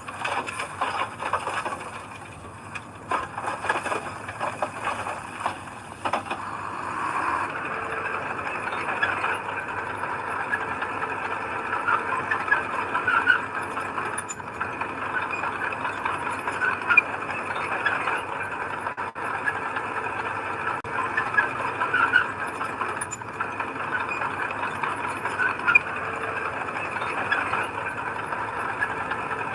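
Heavy earthmoving machinery working, a bulldozer or dump truck: engine running with repeated squealing and rattling. It is more clattery in the first several seconds, then steadier.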